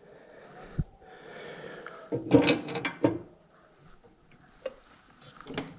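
Light metal clinks and knocks from a moped's steering-head parts being handled: loose steel bearing balls in greased cups and the fork stem against the frame, loudest about two to three seconds in.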